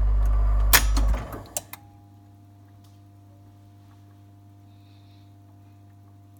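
Wurlitzer 750E jukebox: the sound of the playing record cuts off with a sharp click about a second in, followed by two quicker mechanical clicks. After that the machine hums steadily and quietly.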